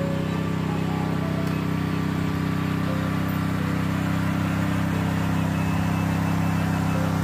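Engine of a Hansung tracked crawler carrier running steadily as the machine drives by on its rubber tracks, growing a little louder as it approaches.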